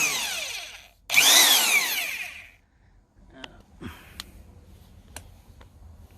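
Maximum 1/2-inch impact wrench run with no load in short trigger pulls: a motor whine winding down, then a second run about a second in that spins up and winds down within about a second and a half. Faint handling clicks follow.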